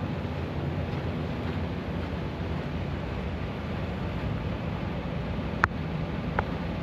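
A steady low rumbling noise, with two short sharp clicks near the end, less than a second apart.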